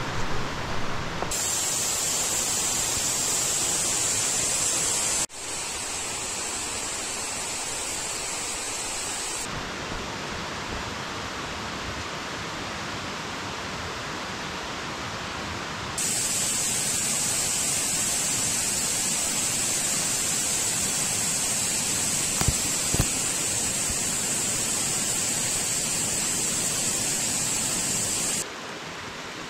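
Steady rush of flowing water from a mountain stream, as a continuous hiss that changes abruptly in level and tone several times, at about 1, 5, 9, 16 and 28 seconds in.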